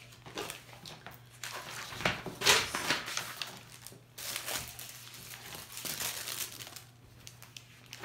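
Pages of a ring binder being leafed through by hand: a series of paper rustles, the loudest about two and a half seconds in.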